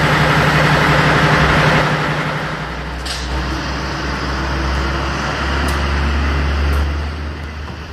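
Steady jet aircraft noise: a constant drone with a low hum underneath and a deeper rumble that swells a little past the middle, with a few faint clicks.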